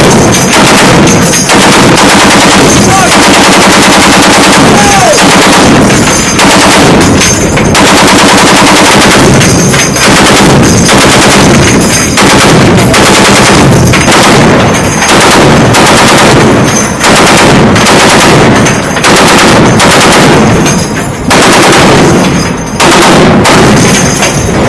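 Browning M2 .50-caliber heavy machine gun firing, very loud, in a string of rapid bursts broken by short pauses every second or few.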